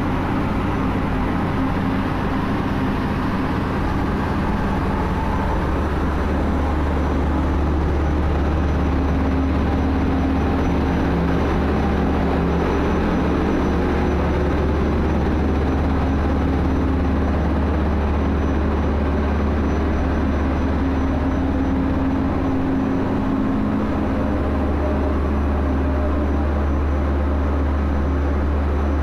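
Tanker ship's engine-room machinery running: a steady, loud, deep hum with constant machine noise over it.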